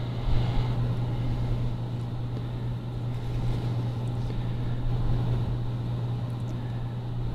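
Steady low hum of a running room appliance, such as an air conditioner or fan, with a few faint light ticks.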